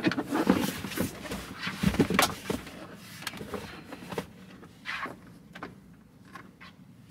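Handling noises inside a car cabin: a series of clicks, knocks and rustles as a bag is moved and someone shifts in the seat, busiest in the first few seconds and dying away toward the end.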